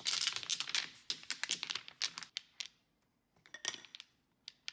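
Wooden toy blocks clacking and clicking against each other as they are gathered and fitted together. There is a dense clatter for about the first two seconds, then a few scattered single clicks.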